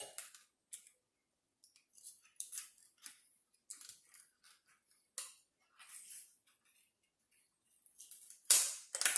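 A table knife scraping and prying at the metal lid of a sardine tin whose ring-pull has come off: short, irregular scratchy scrapes with gaps between, and the loudest scrape near the end as the lid comes back.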